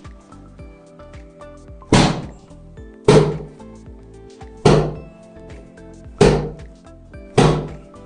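Five heavy thuds at uneven intervals from chiropractic adjustments on a treatment table, each dying away over about half a second, over steady background music.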